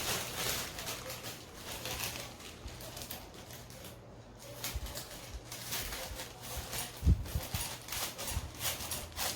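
Scissors cutting a piece of red crepe or cellophane paper, with the paper crackling and rustling in irregular snips. A low bump about seven seconds in.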